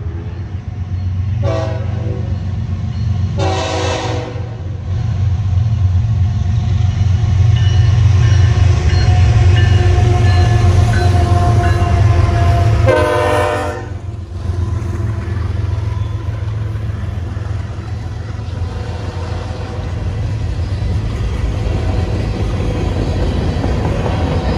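Freight train led by GE ES44C4 and ES44AC diesel locomotives passing close by. The horn sounds a short blast, then a longer one a few seconds in, and another near the middle, over the heavy steady rumble of the engines. The rumble then gives way to the steady rolling of covered hopper cars on the rails.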